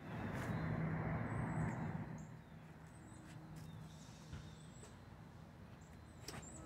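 Outdoor street ambience: a vehicle's engine hum and road noise, loudest for the first two seconds and then fading away, followed by a quieter stretch with faint high bird chirps.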